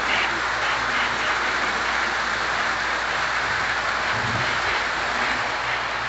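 Lionel O-gauge model freight cars running past on three-rail track, a steady rushing hiss of wheels on rail.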